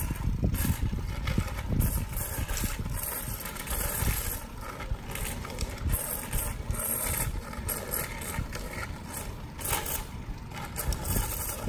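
Low, uneven rumble of riding a bicycle along a park path: tyres rolling on the pavement and air rushing past the microphone.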